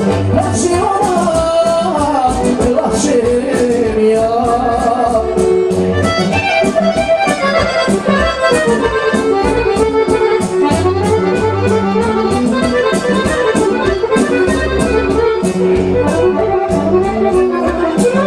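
Serbian folk dance music led by an accordion, with a steady bass beat under the melody.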